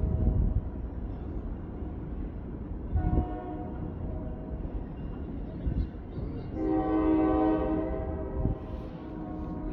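Train horn sounding over a low rumble: a short blast about three seconds in, then a longer steady blast of about a second and a half around seven seconds in. A few dull low thumps are heard along with it.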